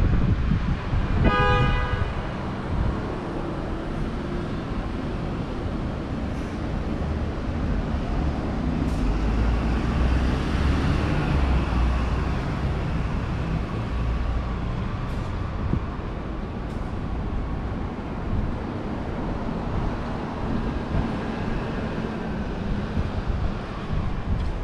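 Street traffic: a steady wash of vehicles and road noise, with a brief horn toot about a second in and a heavier vehicle rumbling past around the middle.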